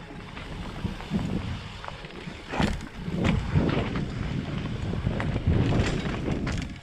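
Trek Slash full-suspension mountain bike descending a rough dirt trail at speed: tyres rumbling over the ground, with wind buffeting the microphone. Sharp knocks and rattles from the bike over rocks and roots come several times.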